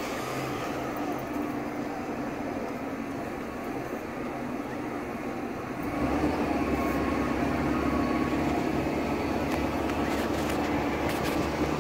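Parasail boat's inboard engine running steadily at idle, then about six seconds in it is put in gear and throttled up, and its running turns louder and deeper. The engine is still warming up, below operating temperature.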